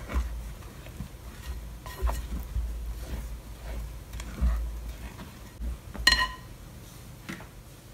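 A spatula stirring dry flour in a glass mixing bowl: soft scraping with dull low bumps against the bowl. About six seconds in, a glass bowl clinks once with a short ring.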